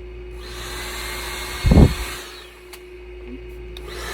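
EPSA professional hair dryer switched on about half a second in, blowing with a steady rushing hiss and a faint whine. A short gust of its air buffets the microphone a little later. The hiss drops away after about two seconds and rises again near the end.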